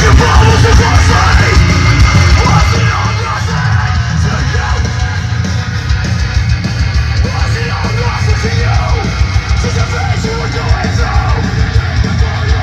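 Loud music played through a PL500/PL504 push-pull valve amplifier and its loudspeaker, with heavy bass that distorts the camera's microphone.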